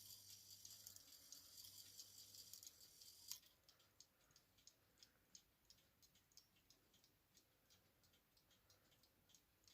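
Small Hermle mantel clock movement, out of its case, ticking quickly and faintly. For about the first three seconds a faint hiss runs under it, ending in a sharp click.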